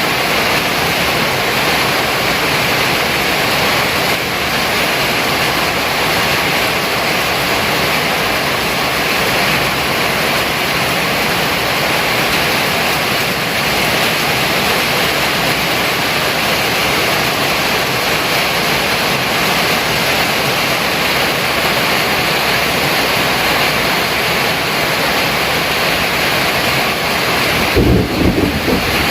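Heavy rain pouring in a steady, loud hiss. Near the end, low gusty rumbles come in, as of wind buffeting the microphone.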